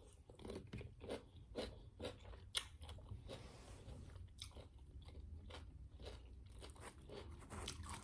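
Close-miked chewing of a toasted grilled cheese turkey sandwich: soft, irregular crunches and wet mouth clicks, several a second.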